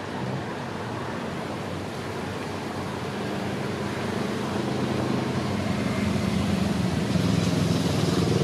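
Motor cruiser's engine running as the boat comes close, a low steady hum that grows louder from about three seconds in.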